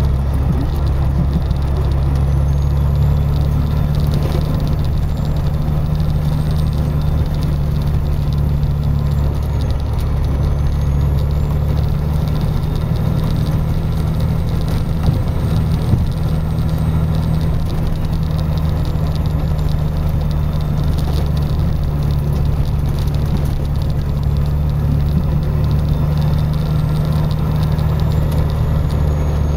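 Steady low drone of a car driving on a snow-covered road, heard from inside the cabin: engine and tyre rumble at an even speed, with a couple of small knocks just past halfway.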